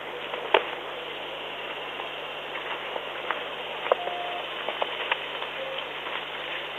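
Horns of two sparring greater kudu bulls, locked together, knocking in a few sharp clicks over a steady hiss.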